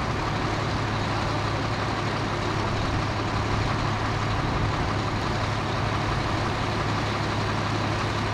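Large fire-engine diesel engine running steadily: a constant low hum under a broad, even rushing noise.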